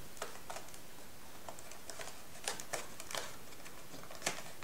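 Metallised paper being folded and creased by hand: scattered small crinkles and ticks, with a few sharper ones about halfway through and near the end.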